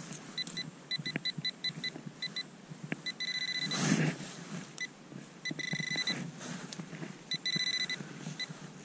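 Handheld metal-detecting pinpointer beeping as its tip is pushed through loose soil: quick pulses of one high tone, about five a second, that run together into a steady tone in several stretches as it homes in on a buried target, a small metal button. About four seconds in, a louder rustle of gloved hands pushing through soil and stubble.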